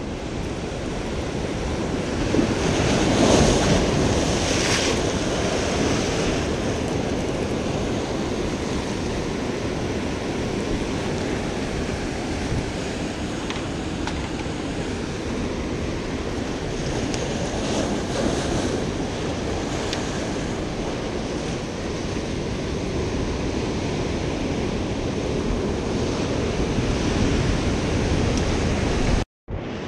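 Ocean surf breaking and washing over rocks, a continuous rushing noise with one louder surge about three seconds in, with wind buffeting the microphone.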